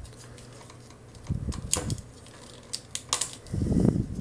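Small plastic transforming robot toy being handled and reconfigured: clicking and ticking of its joints and parts snapping into place, with a couple of louder dull rubbing sounds from the figure being shifted in the hands.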